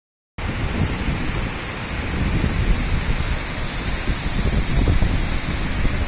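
Water spilling over a stone masonry weir and cascading down onto rocks: a loud, steady rush with heavy low rumbling.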